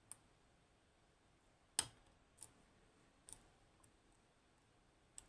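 Faint, sparse metallic clicks from an Assa 600 lock being picked, the pick and pins clicking inside the cylinder: about six short clicks, one sharper than the rest a little under two seconds in.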